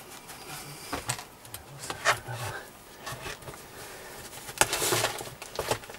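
Chalk rubble and sandbags being moved by hand: scattered scrapes, knocks and rustles, with a longer, louder rustling scrape about four and a half seconds in.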